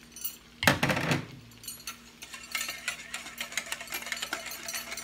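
A utensil stirring cornstarch into sauce in a stainless steel bowl, clinking and scraping against the metal in quick small clicks, with one louder clatter a little under a second in.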